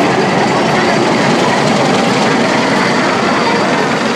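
An amusement-park plane ride, a red replica propeller plane hung from a rotating arm, passing low overhead with a steady mechanical running noise.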